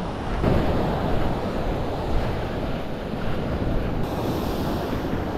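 Sea waves and surf, with wind buffeting the microphone.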